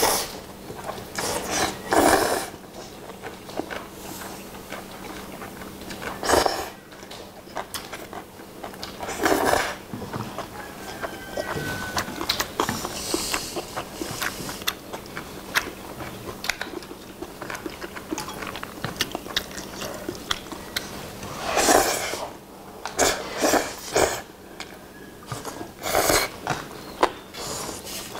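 Two people eating jjapagetti black-bean noodles with chopsticks: loud slurps of noodles come every few seconds, with chewing and small clicks of chopsticks on the bowls between.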